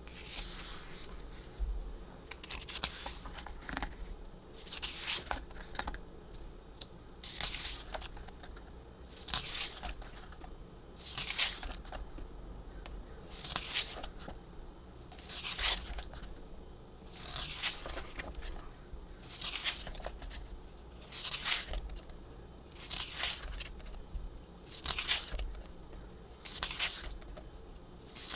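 Pages of a season's greetings photobook being turned one after another, each turn a short papery swish, about one every two seconds.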